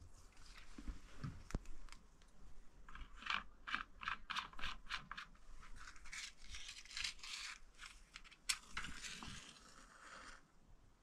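Fire being lit in a mud stove's firebox: a run of short scratching strokes, about three a second, then a longer rustling hiss with one sharp click, as the kindling is struck alight and catches.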